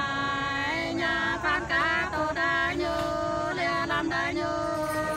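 Unaccompanied Nùng sli folk singing: a pair of voices in long, drawn-out, ornamented notes, one holding a steady low note while the other bends and slides above it.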